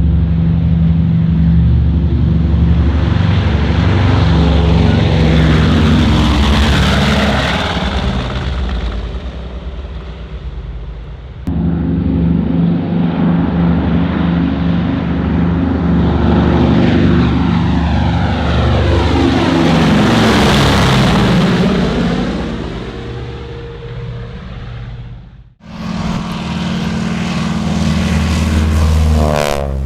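Piston-engined World War 2 propeller aircraft flying past, the engine swelling loudest about a third of the way in and again about two-thirds in. The recording cuts abruptly twice, to another pass and then to a different engine sound near the end.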